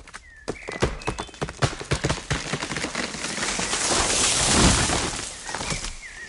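A tree being felled: a quick run of sharp wooden cracks and snaps builds into a loud rushing crash about four and a half seconds in, then dies away. A bird chirps briefly near the start and again near the end.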